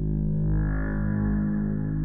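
Background music: a slow ambient piece of sustained low tones, with a brighter swell coming in about half a second in.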